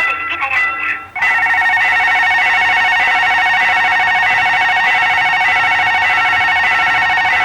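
Electronic railway level-crossing warning bell ringing rapidly and continuously, the alarm that sounds while a train is approaching. It starts about a second in, after a brief broken electronic tone sequence.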